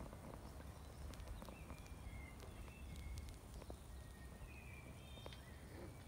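Two Ratonero Bodeguero Andaluz puppies play-fighting on a towel over a tiled floor: faint scuffling and scattered clicks, with a few short, high-pitched squeaks through the middle and latter part.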